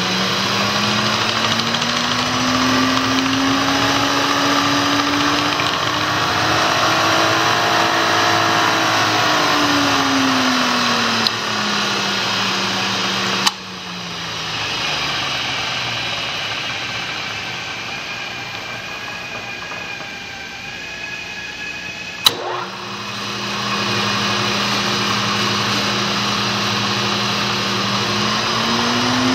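Sharp vertical milling machine's spindle drive running, its pitch rising and then falling again as the spindle speed is turned up and back down. About 13 seconds in there is a click and the machine winds down to a quieter hum. With another sharp click about 22 seconds in it runs steadily again, speeding up near the end.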